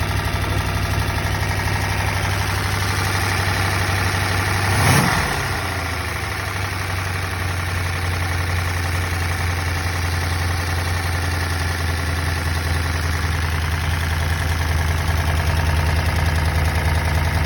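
Buick 425 Nailhead V8 idling with a loud valvetrain clatter from its hydraulic lifters, which persists even with the pushrods reset to .020 in of lifter preload. About five seconds in the engine is briefly revved, then settles back to a steady idle.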